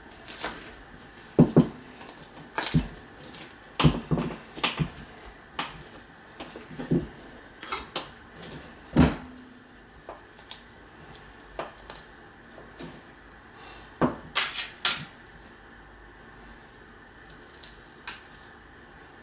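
Handling noise from skinning a rabbit on a metal draining board: scattered knocks and clicks as hands and the carcass bump against the metal, the loudest about a second and a half in, about nine seconds in, and around fourteen seconds in.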